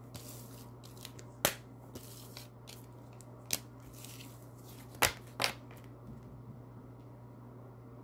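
A deck of oracle cards being gathered and shuffled by hand: a soft rustle of cards with four sharp snaps, the last two half a second apart, over a steady low hum.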